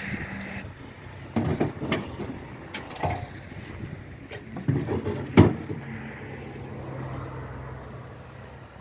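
Toyama chainsaw dropping off its cutting speed to a steady idle, with several loud knocks and thuds over the middle few seconds. The idle fades near the end.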